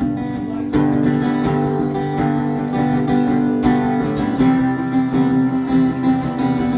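Acoustic guitar strumming chords as the introduction to a country song, changing chord about four and a half seconds in.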